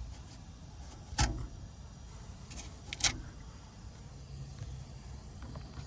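Two sharp knocks, about a second in and about three seconds in, over a low steady rumble.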